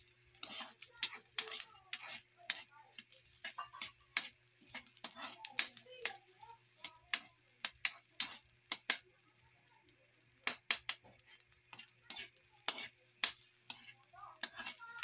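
Metal spatula tapping and scraping against a wok in quick, irregular strokes as sliced ginger and onion are stir-fried in oil, over a steady faint sizzle of the frying.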